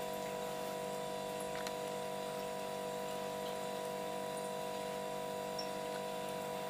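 Refrigerator humming steadily, its motor making a low, even drone with several fixed tones.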